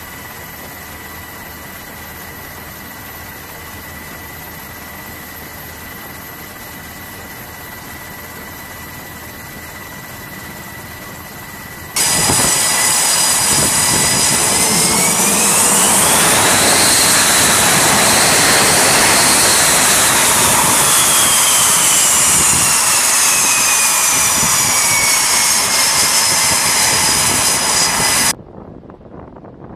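Steady helicopter cabin noise for the first twelve seconds. Then, after an abrupt cut, the jet engines of an F/A-18 Hornet-family fighter run at full power on a carrier catapult before launch, loud, with a whine that climbs and then slowly falls. The sound cuts off suddenly near the end.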